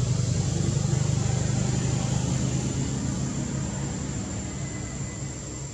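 A motor engine running steadily as a low hum that slowly fades away, with a steady thin high-pitched tone over it.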